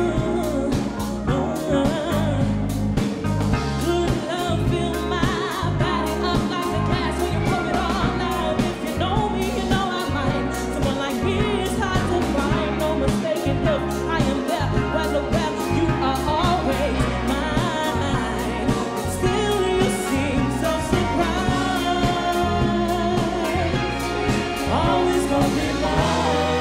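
Live band music with a woman singing lead over drums and bass.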